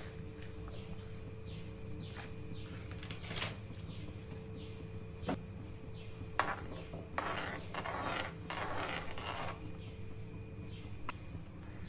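Slotted metal spatula stirring liquid in an aluminium kadai, scraping the pan in short strokes with a few sharp clicks of metal on metal, over a steady low hum. The longest run of scraping comes in the second half.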